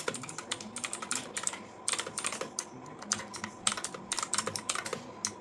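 Typing on an Antesports MK3400 Pro V3 mechanical gaming keyboard: quick, uneven runs of clicky keystrokes with short pauses between words.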